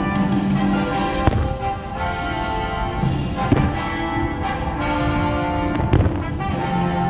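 Orchestral fireworks-show music playing, with firework bursts banging over it a few times: once about a second in, once a little past the middle, and twice in quick succession near the end.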